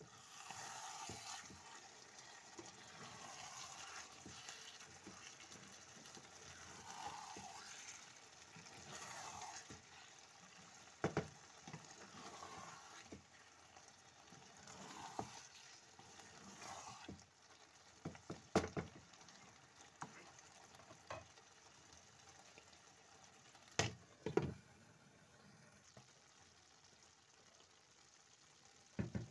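Pot of chickpea, potato and tomato stew simmering and bubbling, stirred with a wooden spoon, with a few sharp knocks scattered through.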